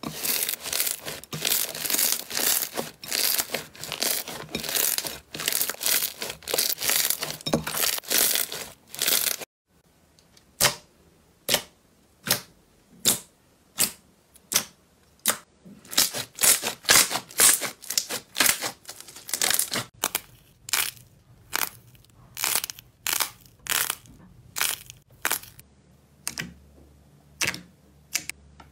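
Hands kneading slime. First comes crunchy foam-bead slime crackling densely as it is squeezed; then, after a cut at about nine seconds, glossy slime gives sharp, separate sticky pops and clicks, about one or two a second, as fingers press in and pull out.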